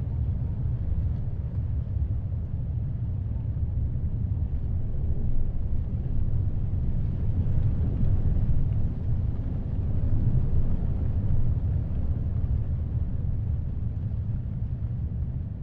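Heavy ocean surf and strong wind: a deep, steady rumble of waves and wind that swells and eases slowly, loudest in the middle.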